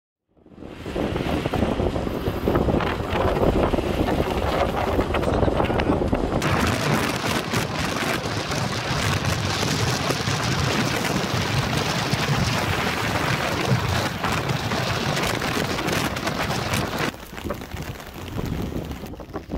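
Wind rushing over the microphone in a rainstorm, a loud steady noise that starts suddenly and falls away near the end.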